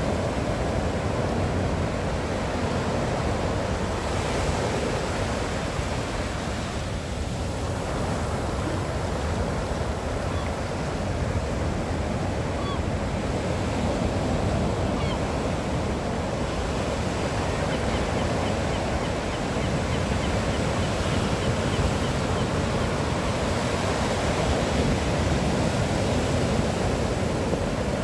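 Sea surf: waves washing onto the shore in a continuous rush that swells and eases slowly.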